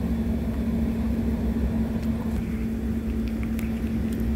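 Steady low mechanical hum with a constant droning tone and a rumble beneath it, with a few faint light clicks in the second half.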